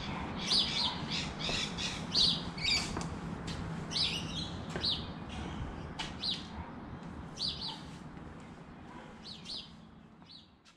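Birds chirping: short, high calls about once or twice a second, fading out near the end.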